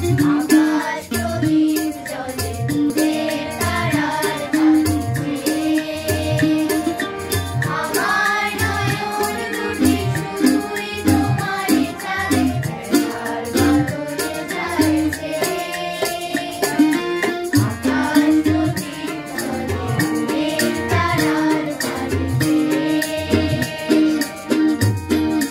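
Live Bengali song: voices singing a melody over a harmonium's held chords, with a hand drum keeping a steady beat of about two strokes a second.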